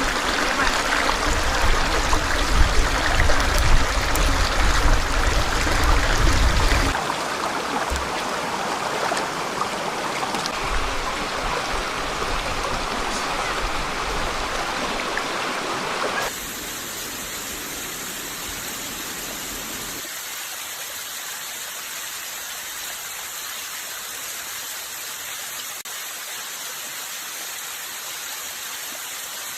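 Forest stream rushing, a steady wash of water noise that is loudest and deepest over the first seven seconds, then drops suddenly in level twice as the shots change.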